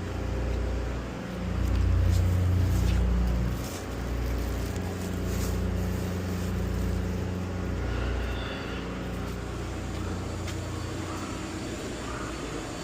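Engine or motor-driven machinery running with a steady low hum that swells and dips unevenly for about eight seconds, then evens out.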